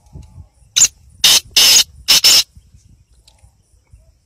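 Black francolin giving its harsh, grating call: five notes in about a second and a half, a short first note, a longer one, a longest third, then two quick closing notes.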